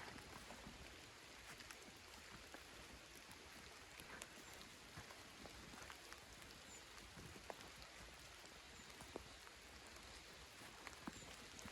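Near silence: faint outdoor ambience, a soft steady hiss with scattered light ticks and a few faint, short high chirps.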